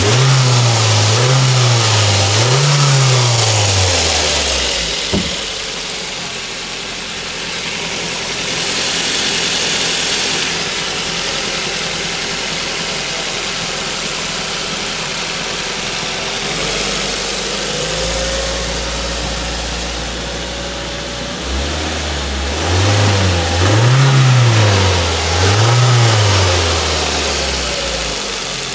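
Ford Focus 2.0 petrol (AODA) inline-four engine running: it is revved three times in quick succession, settles to a steady idle, then is revved several more times near the end. The seller presents it as in very good running order.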